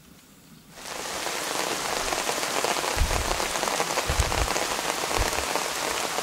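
Rain falling steadily, starting suddenly about a second in, with a few dull low thumps in the middle.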